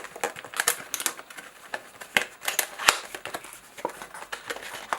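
Plastic packaging of a new M.2 SSD being handled and opened, with irregular crinkles and sharp clicks.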